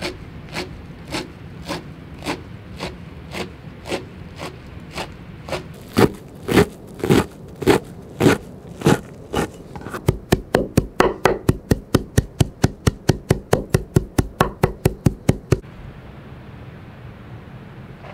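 A large kitchen knife chopping a heap of fresh green herb leaves on a wooden cutting board. It starts with steady knocks about two a second, which grow harder about six seconds in. Then comes a quick run of about five chops a second that stops a few seconds before the end.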